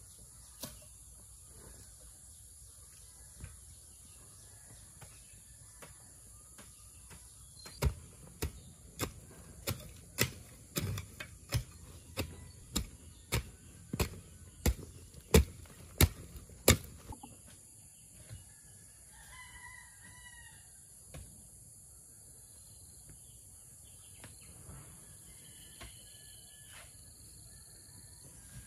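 A run of about fifteen sharp knocks, evenly spaced at a bit under two a second, starting about eight seconds in and stopping near seventeen seconds. A few seconds later a rooster crows once, over a steady high insect drone.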